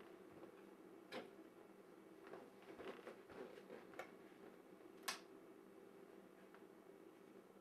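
Near silence: room tone with a few faint, scattered clicks and taps, the sharpest about five seconds in.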